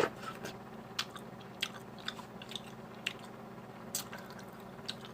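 A person chewing food close to the microphone: scattered wet mouth clicks and smacks, roughly one every half second to a second.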